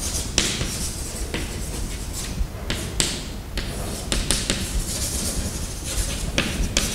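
Chalk writing on a blackboard: a run of quick taps and short scratchy strokes.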